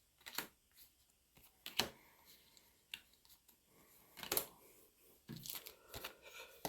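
Faint, scattered rustles and crinkles of trading cards and a foil booster-pack wrapper being handled, a few short sounds spread over several seconds.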